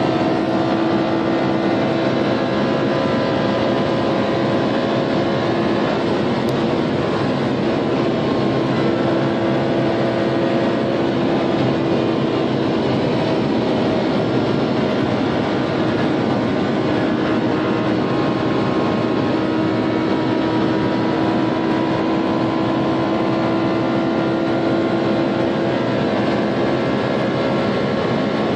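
Lamborghini Huracán's V10 engine holding a steady drone in seventh gear at over 300 km/h, heard from inside the cabin under an even rush of wind and road noise.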